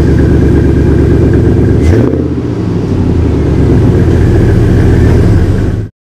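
Pickup truck's engine idling, heard close to the exhaust tip as a steady pulsing rumble. About two seconds in there is a click and the note shifts lower and dips slightly before settling back; the sound cuts off suddenly near the end.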